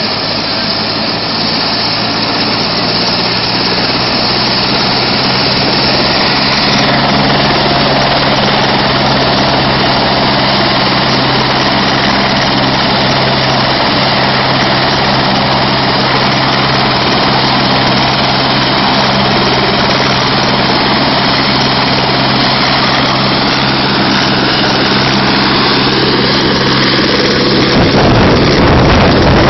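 Eurocopter AS350 Écureuil air ambulance helicopter running on the ground, its turbine and main rotor giving a loud, steady hum that builds over the first few seconds as the rotor comes up to speed. Near the end the steady tones give way to gusty rotor wash buffeting the microphone as it readies to lift off.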